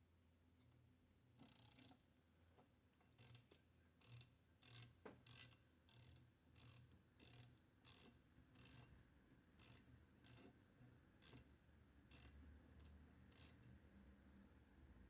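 Flathead screwdriver working out one of the large screws of a Mercedes Model 4 typewriter's front plate: a faint run of about fifteen short scratchy strokes, roughly one every two-thirds of a second, one for each twist of the screwdriver.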